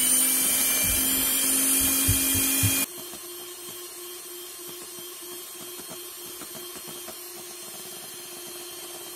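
Polaris electric hand mixer with a single beater running at steady speed, whipping instant coffee, sugar and water into a thick foam. About three seconds in, the sound cuts abruptly to a much quieter steady motor hum as the whipping goes on.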